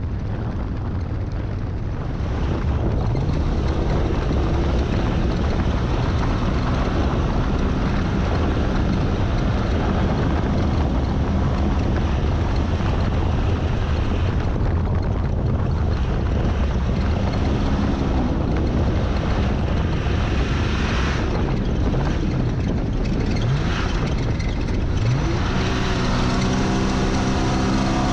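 Jeep Comanche Ultra4 race truck driving hard over a dirt course, its engine drone buried in heavy wind buffeting and road rumble on the hood-mounted camera. Near the end, as the truck slows, the engine note comes through more clearly with a few rising revs.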